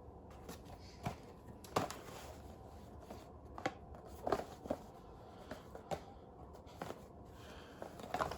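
Small cardboard bulb boxes being handled and set down on a surface: about ten scattered light taps and rustles over a faint steady hum.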